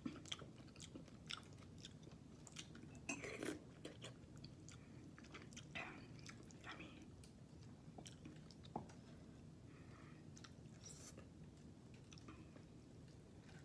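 Faint chewing and eating sounds of a person eating sautéed sardines with sweet potato leaves: scattered short clicks and wet smacks, irregular, with no steady rhythm.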